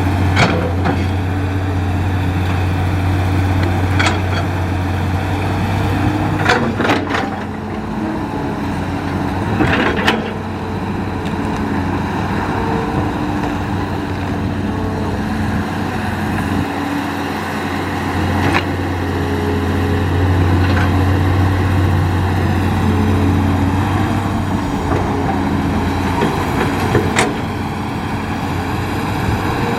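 Hitachi excavator's diesel engine running under hydraulic load, its note shifting as the machine works, with several sharp clanks and knocks scattered through.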